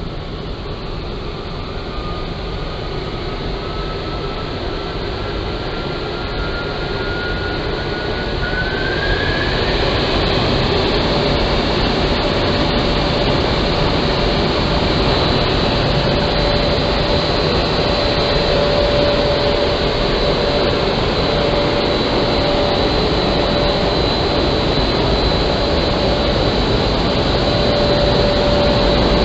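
Triulzi SY2500 horizontal glass washing machine running: a dense, steady machine noise with a faint whine that rises in pitch over the first nine seconds or so. It then settles into steady hum and whine tones as the noise grows a little louder.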